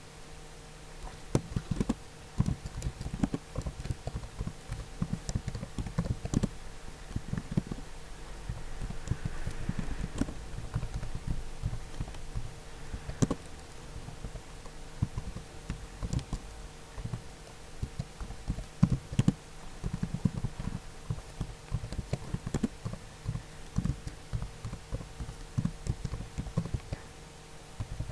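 Computer keyboard being typed on in irregular runs of taps, over a steady low hum.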